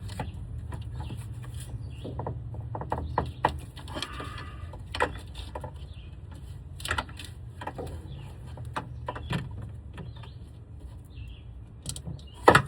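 Scattered light clicks and knocks of hand tools against metal and plastic while prying at a truck's steering shaft, over a steady low hum, with one sharp, loud knock near the end.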